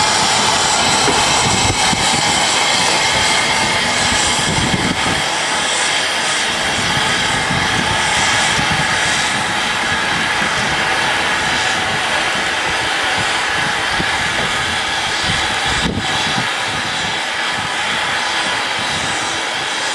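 Steam locomotives LNWR coal tank 0-6-2T No. 1054 and Midland Railway 4F 0-6-0 No. 43924 letting off steam in a loud, steady hiss, with no exhaust beat. A single sharp click about sixteen seconds in.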